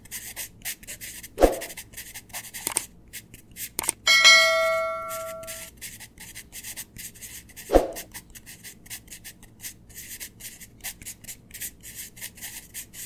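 Pen and marker scratching on paper in rapid short strokes. A bell chime rings about four seconds in and fades over a second and a half. Two short dull thumps come, one near the start and one just before eight seconds.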